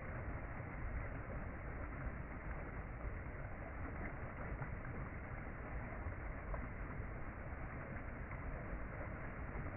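Mountain stream rushing and splashing over rocks in a steady, unbroken flow.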